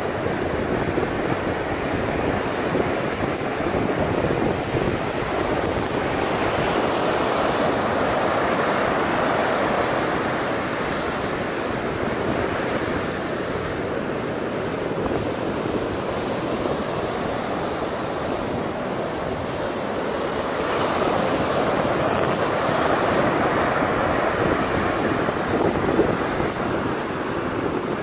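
Sea surf breaking and washing up a flat sandy beach. A steady rushing wash that swells louder for a few seconds twice as bigger waves come in.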